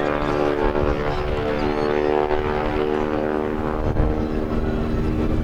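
Stearman biplane's radial engine and propeller droning steadily in flight.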